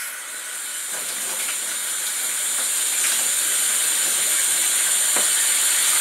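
Tap water running from a bathroom faucet through a fill hose into the plastic wash tub of a Panda B45 portable twin-tub washing machine: a steady hiss that grows a little louder as the flow comes up.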